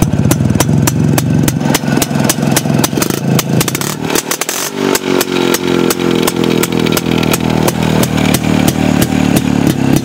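Vintage Yezdi two-stroke motorcycle engine running through its twin silencers, with a steady, even beat of exhaust pulses. About four seconds in the note dips briefly, then picks up a little faster.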